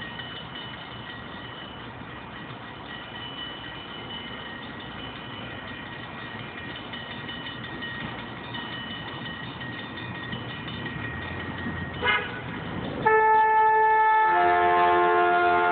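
Approaching passenger train with a low rumble that slowly grows, and a faint high ringing tone over it. About twelve seconds in the horn gives a short blip, then sounds a long loud blast: one note at first, joined after about a second by further notes into a chord.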